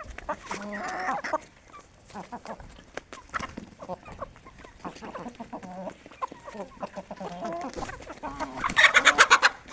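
Aseel hens clucking while feeding: short pitched calls throughout, with a louder, rapid run of clucks near the end.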